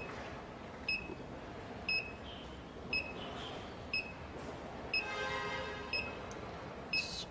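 WiFi/GSM alarm panel beeping a short high tone about once a second, the countdown it gives just after being armed. A brief buzzy tone joins in about five seconds in.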